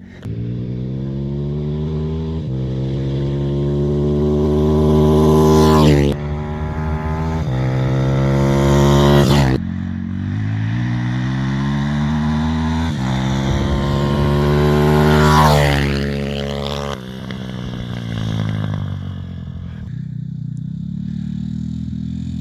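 Pit bike's Zongshen 160cc single-cylinder four-stroke engine pulling hard. Its revs climb and drop sharply three times, then it runs steadier at lower revs near the end.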